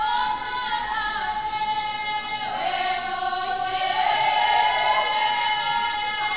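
A folk singing group singing together, one steady high note held throughout while the other voices slide and shift around it.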